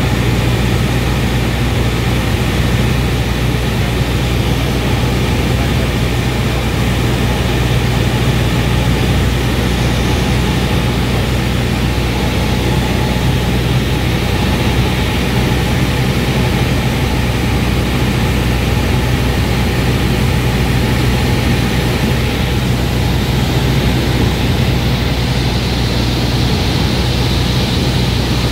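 Cessna 172's piston engine and propeller running steadily in flight, a constant low drone heard from inside the cockpit.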